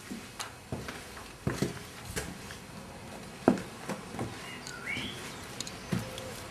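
Footsteps on stone paving slabs at a walking pace, with a bird chirping briefly about five seconds in.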